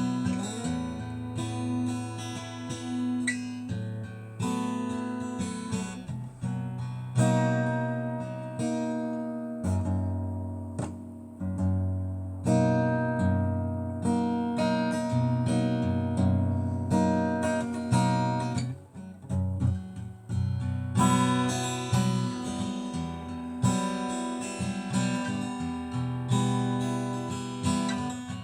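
Acoustic guitar strumming chords in an instrumental passage, with no singing.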